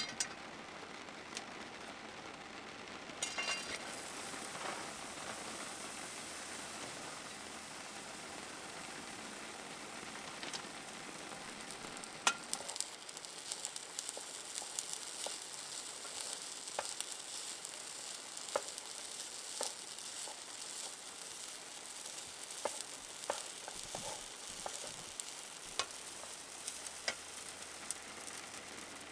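Food sizzling in a frying pan, with scattered clicks of a utensil against the pan as it is stirred; the sizzle grows louder about twelve seconds in.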